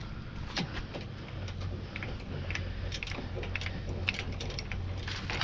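Travel-trailer tongue jack being worked to lower the trailer's front for front-to-back leveling: irregular mechanical clicks and ratcheting, with a low steady hum coming in about a second and a half in.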